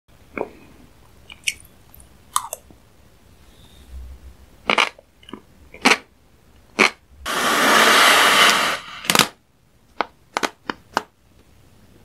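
Close-miked mouth sounds of eating: a string of short, sharp clicks and pops. About seven seconds in there is a loud, harsh hiss that lasts about a second and a half.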